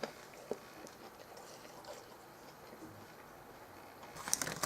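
Quiet handling of fast-food packaging: a few faint clicks and soft rustles, then a short burst of paper crinkling near the end.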